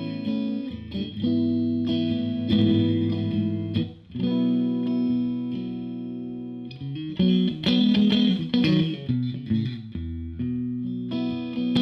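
Odlair SH 210 OW 7 Stratocaster-style electric guitar played through a Marshall JTM combo amp with a light overdrive and effects, ringing chords changing every second or two. A run of quick strummed strokes comes about seven seconds in, followed by a low single note and another ringing chord.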